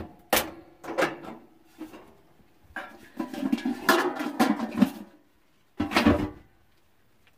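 Kitchen clatter of pots, lids and containers being handled: a few separate knocks and clunks, a longer run of clattering in the middle, and one more loud clunk near the end.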